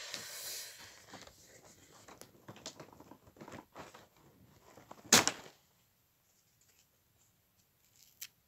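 Handling noise: a plastic chocolate-bar wrapper rustles briefly at the start, followed by faint scattered rustles and one sharp knock about five seconds in.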